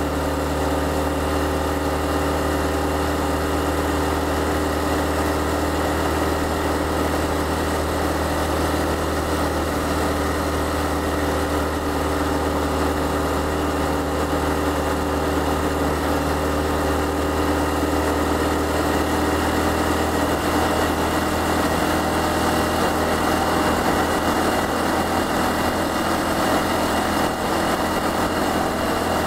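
Honda Cross Cub CC110's small single-cylinder four-stroke engine running steadily at cruising speed, heard from the saddle through binaural microphones, over a steady rush of wind and road noise.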